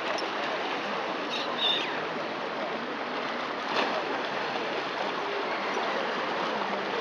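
Small sea waves splashing and lapping against rocks, a steady wash of water, with a short high gull cry about one and a half seconds in.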